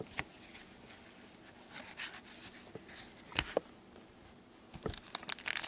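Trading cards handled in cotton-gloved hands: soft scattered clicks and rustles of card stock as the cards are fanned and flipped, growing busier near the end.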